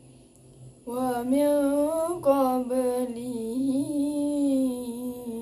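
A girl's voice reciting the Quran in melodic tilawah style. It starts about a second in with long held notes that bend up and down in pitch.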